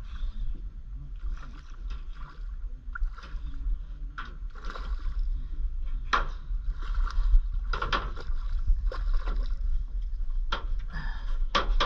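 A hooked fish splashing and thrashing at the water's surface as it is played in beside the boat: a string of short, sharp splashes over a steady low rumble.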